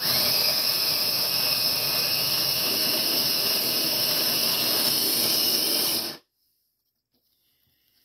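Sboly electric conical burr coffee grinder running on a coarse setting, its motor and burrs grinding beans in a steady whir. It cuts off abruptly about six seconds in, as the grinder stops on its own at the set number of cups.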